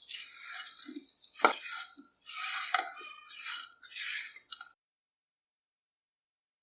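Wet, squishy kitchen handling sounds with drips and a few sharp clicks, which stop abruptly about three-quarters of the way through.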